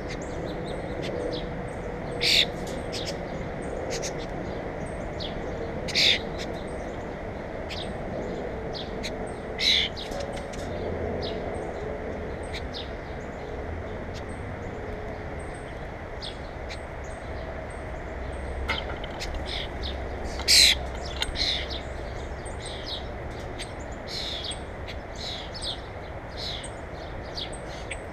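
Wild birds calling: a loud short call repeats every few seconds, with many fainter chirps in between, over a steady outdoor hiss.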